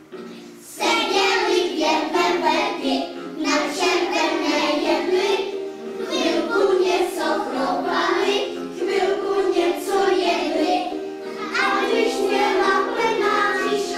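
A group of young children singing a song together in unison over instrumental backing music, starting about a second in.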